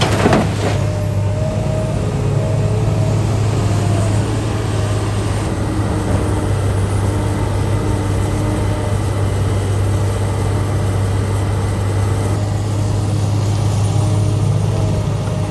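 Heavy diesel engine of construction machinery running steadily with a constant low drone, and a short knock right at the start.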